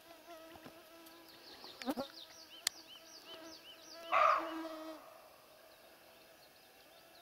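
Siberian roe deer buck giving one hoarse alarm bark about four seconds in, over the steady whine of mosquitoes close by. A couple of sharp clicks come before the bark, and small birds chirp high in the background.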